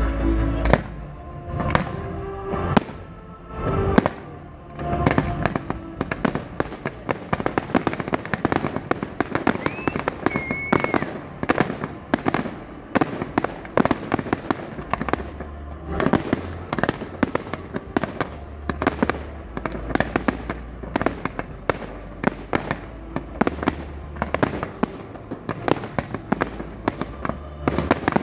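Fireworks display: a few heavy bangs in the first seconds, then a rapid, dense string of shell bursts, pops and crackles, with one brief whistle about ten seconds in.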